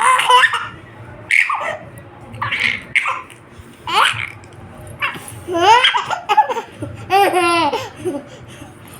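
A baby laughing in about six short bursts, with a longer run of quick laughs near the end.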